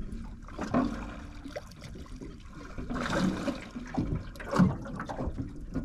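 Seawater sloshing and splashing at the side of a small boat, with a few louder splashes, as a hooked Rankin cod is brought up to the surface.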